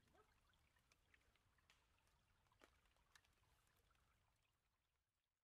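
Near silence, with a faint hiss and a few very faint clicks.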